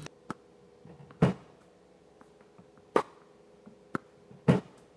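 Tennis balls being hit: a Silent Partner ball machine feeding balls and a player striking forehands with a racket, heard as about five sharp pops a second or so apart, three of them much louder, over a faint steady hum.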